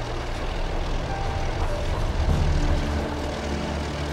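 Diesel-electric locomotives of a narrow-gauge train working upgrade, heard from a coach further back as a steady low engine drone mixed with the running noise of the train. The drone swells a little about halfway through.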